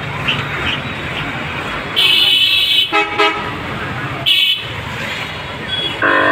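Busy street traffic with vehicle horns honking: a loud, high-pitched horn blares about two seconds in, short toots follow at about three and four and a half seconds, and a lower, multi-toned horn starts near the end and holds.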